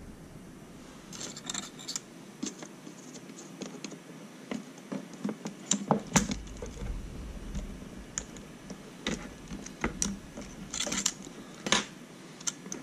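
Small hand tools clicking and scraping against the plastic parts of an opened Turnigy i6 radio transmitter's stick assembly, in irregular sharp ticks with a denser cluster a little after the middle and again near the end, while a small spring part is being fished out.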